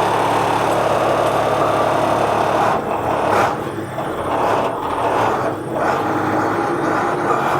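International crane truck's diesel engine running steadily, heard from the cab with the window down; the engine sound dips and wavers between about three and six seconds in.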